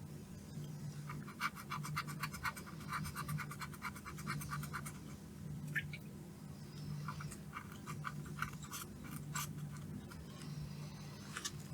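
Quick, rapid scratching strokes on a circuit board as a burnt, charred IC is scrubbed clean, in two runs with a short pause between them. A steady low hum runs underneath.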